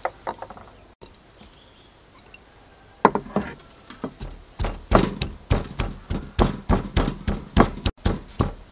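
Stone pestle pounding red chilies and garlic in a stone mortar. A few light knocks come at the start, then about three seconds in a steady run of thuds begins, about three strokes a second.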